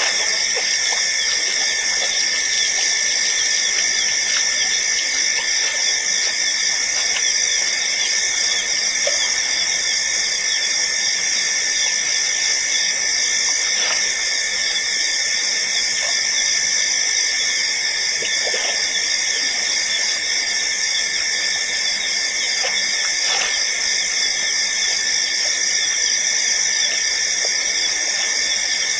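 Steady high-pitched hissing whine at several pitches at once, unchanging in level, with faint short soft sounds every few seconds.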